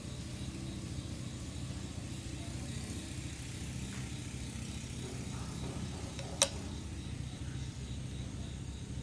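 A small engine running steadily at a low, even pitch, with one sharp click about six and a half seconds in.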